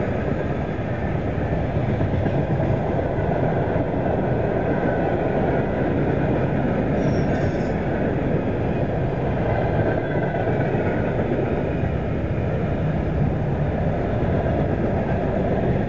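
Freight cars of a manifest train, tank cars and then covered hoppers, rolling past: a steady rumble of steel wheels on the rails.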